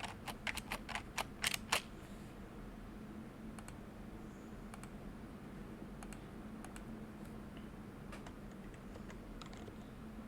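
Typing on a vintage rubber-dome Happy Hacking Keyboard: a quick run of key presses in the first two seconds, then a few faint, scattered keystrokes.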